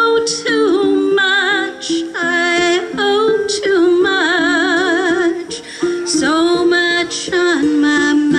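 Live singing with a wavering vibrato over a ukulele being played, phrase after phrase of a song.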